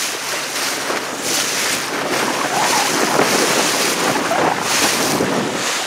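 Wind rushing over the microphone with the wash of water on open sea, swelling and easing in gusts.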